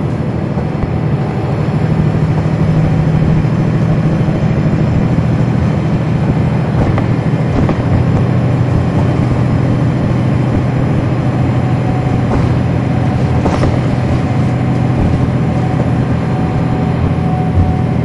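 Cummins ISL9 diesel engine of a NABI 40-SFW transit bus running steadily as the bus drives along, heard from the back seats inside the bus as a deep, even drone that swells slightly about two seconds in.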